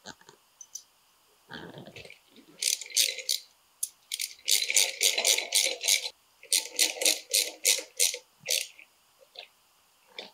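Ratchet wrench clicking in quick runs, about five or six clicks a second, as nuts are run down onto the casters' 3/8-16 studs. A few soft knocks of handling come first.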